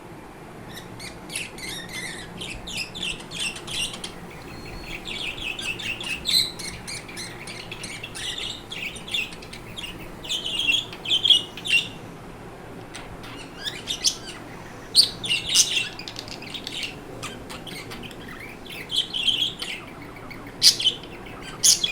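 Pet budgerigars chirping and warbling in quick bursts of chatter, breaking off for short pauses before starting again.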